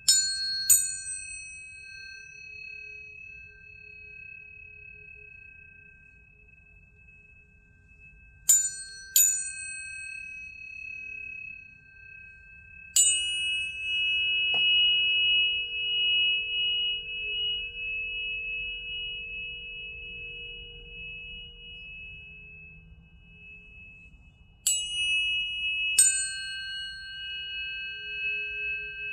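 Planetary tuning forks struck, mostly two at a time, each strike a sharp metallic ping that settles into long, steady, high ringing tones. Fresh pairs come at the start, about 8 seconds in, about 13 seconds in and about 25 seconds in, the tones overlapping and slowly fading between strikes.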